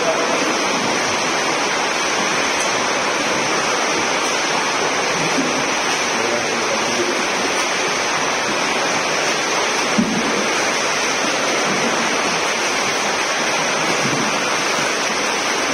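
Steady rushing splash of several swimmers doing front crawl in an indoor pool, with one brief knock about ten seconds in.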